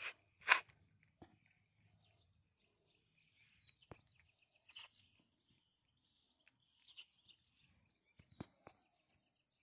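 A cat eating wet food from a plate: two short, louder chewing sounds near the start and a few faint clicks later. Faint bird chirps in the background.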